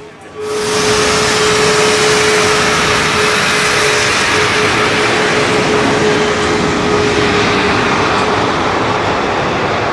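Jet aircraft engine noise: a loud, steady rushing roar that starts suddenly about half a second in, with a steady tone running through it that fades out near the end.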